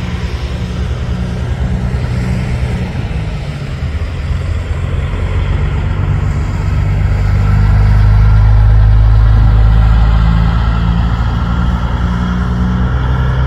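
Diesel engine of a long-hood semi tractor running without a trailer as it drives past, a steady low engine note that grows louder to a peak about two-thirds of the way through, then eases slightly as it pulls away.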